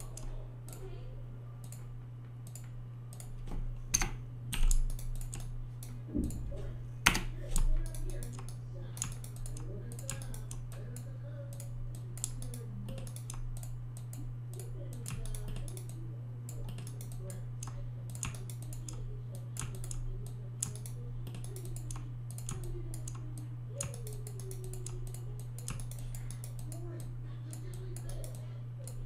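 Computer keyboard and mouse clicking at an irregular pace while 3D modelling software is being operated, over a steady low hum. A few louder clacks come about four to eight seconds in.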